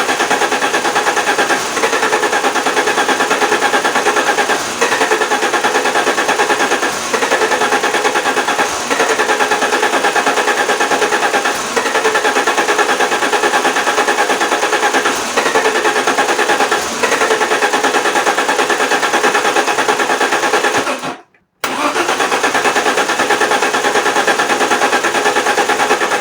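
Alfa Romeo 164 2.0 V6 Turbo Busso engine being cranked on the starter in long runs, stopping briefly about 21 seconds in and then cranking again. It kind of wants to fire but does not start.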